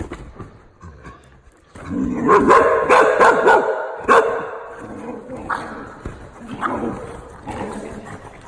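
Two dogs, one a Shar-Pei, barking and yipping at each other in a rough play-fight. The calls start about two seconds in, come thick and fast for a couple of seconds, then go on in shorter, lighter bursts.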